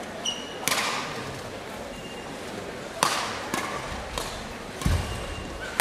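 Badminton rally: sharp racket strikes on the shuttlecock, the serve about a second in and then several more from about three seconds on. Brief shoe squeaks on the court floor come between them, and a player's foot lands with a heavy thud shortly before the last strike.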